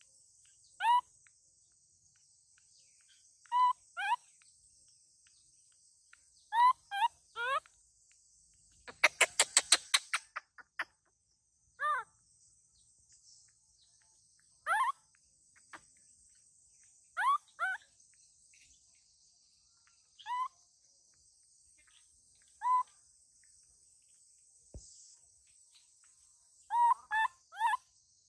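Short rising calls, singly or in twos and threes every few seconds, with a quick run of about ten pulsed calls around ten seconds in, over a steady high insect drone.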